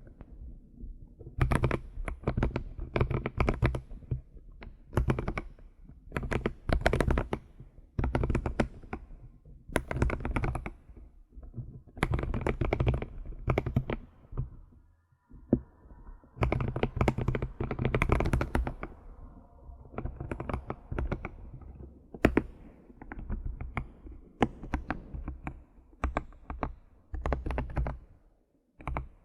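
Computer keyboard being typed on in quick bursts of key clicks, each run lasting a second or two with brief pauses between, and a longer pause about halfway through.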